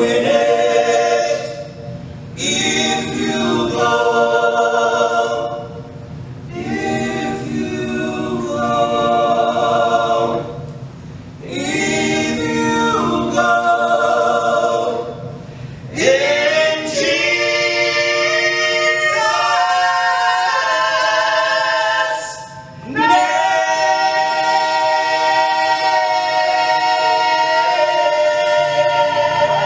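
Men's gospel quartet singing a cappella in close harmony, phrase by phrase with short breaks for breath, then holding one long chord through the last several seconds.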